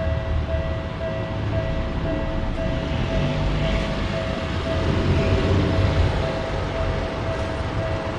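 Japanese railroad crossing warning bell ringing its even "kan-kan" at about two strikes a second, over the low rumble of a train passing on the rails.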